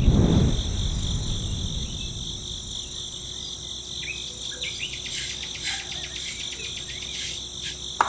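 Steady chorus of chirping insects, with a few short chirps in the middle. A low rumble at the start fades away over the first second or so.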